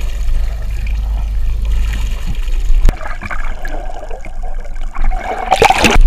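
Low rumble of wind and boat noise, then after a cut the muffled gurgling and trickling of water heard with the camera underwater, swelling into a loud rush of water near the end.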